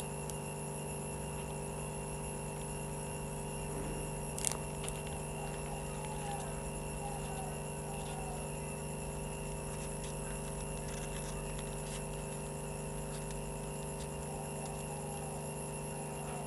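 Steady electrical-sounding hum of several fixed tones, with faint handling noises from paper petals being rolled and glued by hand and one sharper click about four and a half seconds in.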